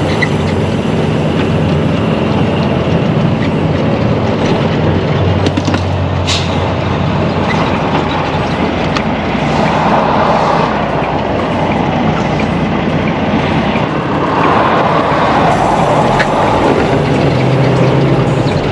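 Road noise from a moving vehicle heard from inside: a steady engine hum under tyre and wind noise, swelling louder about ten seconds in and again about fifteen seconds in.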